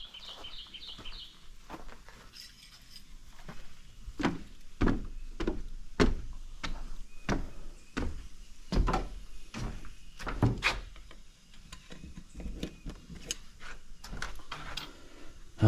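Footsteps climbing wooden deck stairs and crossing the wooden deck, a dull thud with each step, about one to two a second. A bird chirps a quick series at the start.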